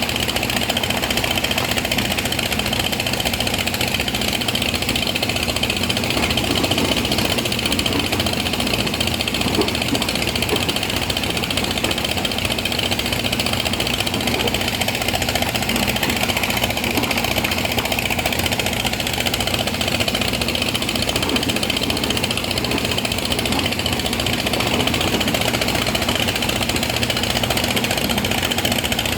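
Excavator's diesel engine running steadily, with a fast, even pulse throughout.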